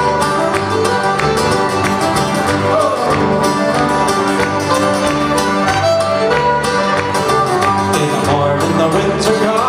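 A folk band playing an instrumental break: fiddle bowed over two strummed acoustic guitars and an electric bass, with a steady beat.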